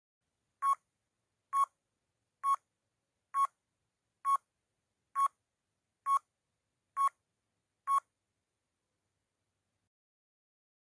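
Countdown timer sound effect: nine short electronic beeps of one pitch, a little under a second apart, ticking off the seconds, stopping about eight seconds in.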